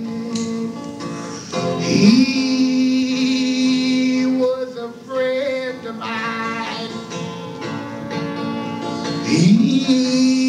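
A man singing a slow folk song in long drawn-out notes, sliding up into a held note twice, over acoustic guitar, in a live recording.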